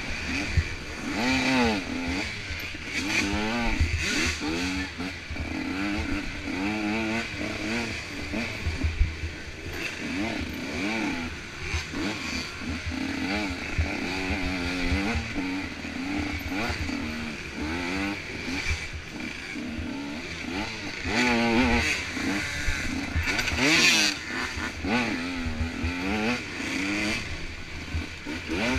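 Motocross bike engine revving hard and easing off over and over, its pitch climbing and dropping every second or two as it is ridden round the track, with a few sharp knocks along the way.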